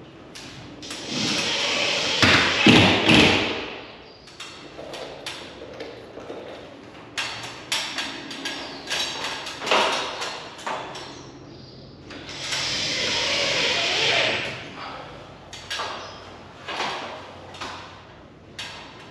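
Knocks, taps and thuds of an LED light fixture being handled and mounted on a garage ceiling. Two longer noisy bursts of about two and a half seconds each come about a second in and again around twelve seconds.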